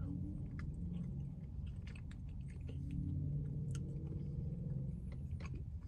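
A man chewing a mouthful of soft pasta with his mouth closed, faint wet mouth clicks scattered through it, over a steady low hum in a car's cabin.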